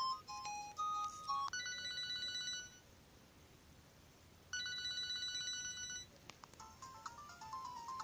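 An LG GB102 mobile phone playing ringtones through its small speaker. A quick run of short electronic notes ends about a second and a half in. Then come two held electronic ring tones, each about a second and a half long, with a pause between. A new fast melody of short notes starts about six seconds in.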